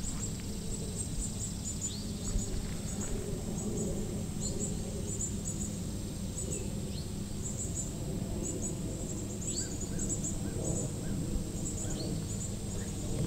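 Outdoor ambience: a bird repeats a short falling whistle every few seconds, with quick clusters of very high chirps throughout, over a steady low rumble.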